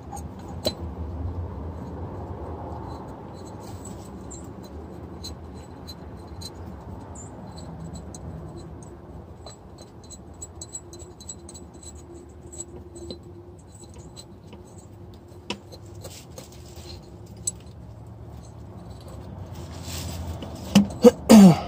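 Hand tools and bolts being handled while the thermostat housing is bolted back on: scattered light metallic clicks and scrapes, with a few louder knocks near the end.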